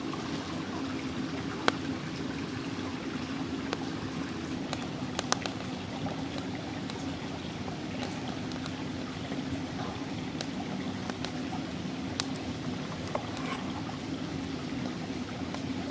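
A forest stream running steadily, with scattered sharp clicks and crackles over it.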